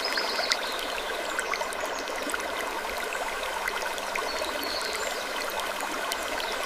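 Steady rushing noise like a flowing stream, dotted with many faint clicks and a few short, high squeaks.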